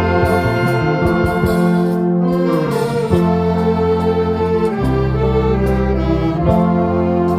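Live band playing an instrumental passage, brass instruments carrying the melody in long held notes over a steady bass line.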